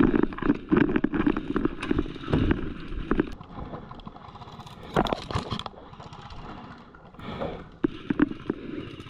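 Airsoft player on the move: thudding footsteps and gear knocking against the microphone, with scattered sharp clicks and cracks, the loudest about five seconds in and again near the end.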